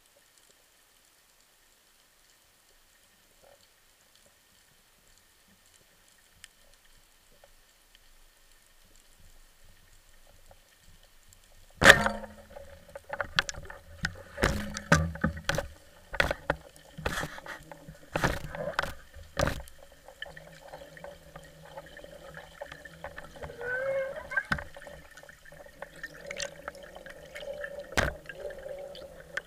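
Underwater, near silence and then, about twelve seconds in, one sharp loud crack of a pneumatic speargun firing. It is followed by irregular knocks and clicks of the gun and its shooting line being handled, and bubbling water near the end.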